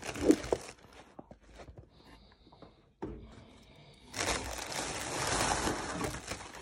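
Plastic air-pillow packing and cardboard rustling and crinkling as a shipping box is unpacked by hand: a short burst at the start, then a longer spell of about two seconds from around four seconds in.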